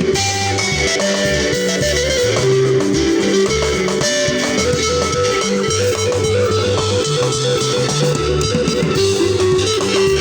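Live band music at a sound check: an electric guitar plays a quick repeating melodic line over bass guitar and drums, at a steady loud level.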